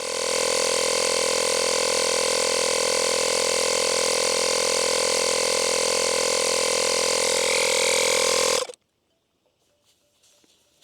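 Portable 12-volt air compressor, powered from the motorcycle, running steadily at an even pitch as it inflates the tire, then stopping suddenly after about nine seconds.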